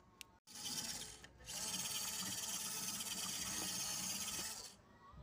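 WPL D12 RC mini truck's small electric motor and gearbox whining as it drives over wet planks, with its tyres swishing through the water. It runs in two spells: a short one about half a second in, then a longer run of about three seconds that stops near the end.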